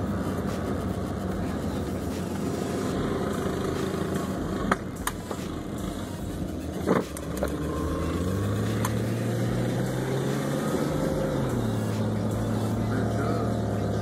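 Small engines of a lawnmower and a Yamaha PW80 two-stroke mini dirt bike running under load. One engine's pitch climbs a little past halfway, holds for a few seconds, then drops back; a few sharp knocks sound midway.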